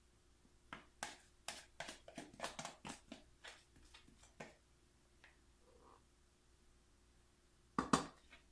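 A spoon scraping and clicking against the inside of a plastic pitcher while thick hot-process soap batter is scooped out, a quick run of clicks for a few seconds, then two sharp knocks near the end.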